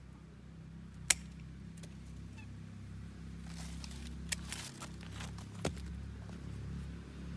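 Pruning tool cutting twigs on a lộc vừng (Barringtonia) tree: a loud sharp snip about a second in, then a few smaller snips and some rasping cuts in the middle. A steady low hum runs underneath.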